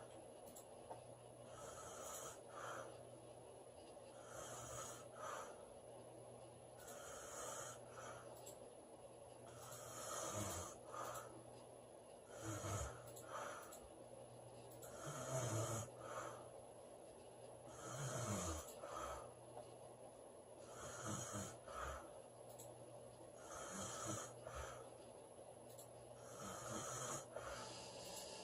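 A woman snoring in her sleep, one rasping breath every two and a half to three seconds, the snores low-pitched and falling. They are quieter at first and louder from about ten seconds in.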